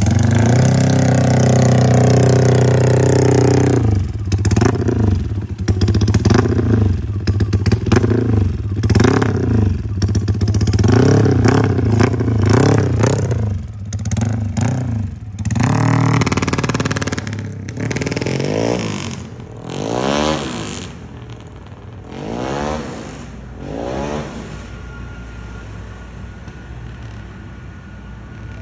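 Motorcycle engine running, then revved in quick throttle blips about once a second, each rev rising and falling. In the second half the blips come further apart and quieter.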